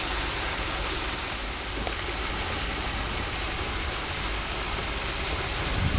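Steady hiss of rain falling during a thunderstorm, with a low rumble starting near the end.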